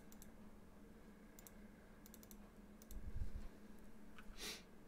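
Faint clicks of a computer mouse and keyboard: a few single clicks and a quick run of clicks about two seconds in. A low thump comes about three seconds in, the loudest sound, and a short breathy hiss near the end.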